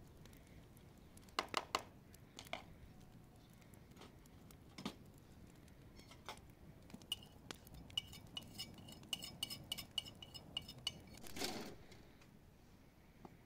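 Steel dishes and a spoon clinking on a metal tray: a few sharp knocks at first, then from about seven seconds in a quick run of ringing clinks, about four a second, like a spoon against a metal bowl. A short scrape comes near the end.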